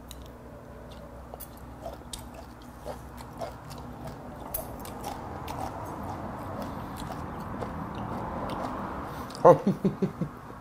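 A man chewing raw mudskipper sashimi, with faint wet clicks of the bites. Near the end comes a quick run of about five short grunting 'mm' sounds of enjoyment, the loudest part.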